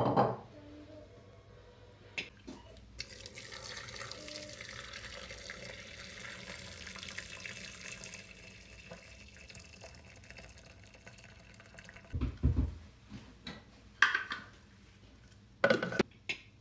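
Water pouring steadily into a Thermomix's stainless-steel mixing bowl over diced raw chicken for several seconds. Near the end come a few thuds and sharp clacks as the bowl's lid is put on.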